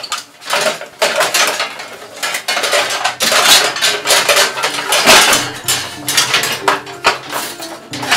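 Thin sheet-metal panels of an air conditioner clanking, rattling and scraping as they are wrenched apart and handled, a dense run of metal knocks with no pause.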